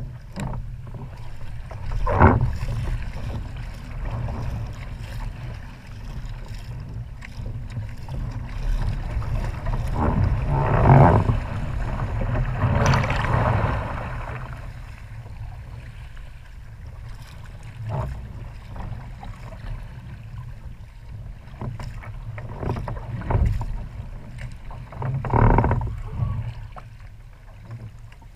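Strong wind buffeting the bow-mounted microphone, a constant low rumble, while water rushes and splashes along the kayak's hull as it runs with wind-driven chop. Several louder surges of splashing and gusts come and go, the longest about a third of the way in.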